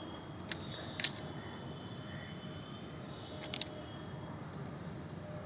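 Bypass pruner blades clicking shut several times: a sharp click about half a second in, a double click about a second in, and a quick cluster of clicks about three and a half seconds in, over steady background noise.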